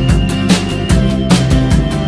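Background music with a steady drum beat, about two and a half beats a second, over held notes.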